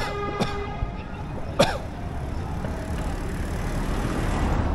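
Street traffic: a steady noise of passing vehicles that swells toward the end. It opens with a short beep, and another brief sharp sound comes about a second and a half in.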